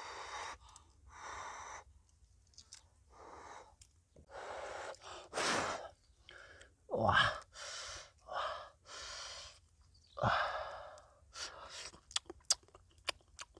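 Short puffs of breath blown over a cooked egg while it is peeled by hand, a dozen or so separate breathy bursts. Near the end come several quick crackly clicks of eggshell breaking off.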